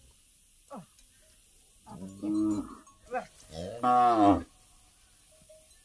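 A cow mooing twice: a shorter call about two seconds in, then a longer, louder low moo about four seconds in.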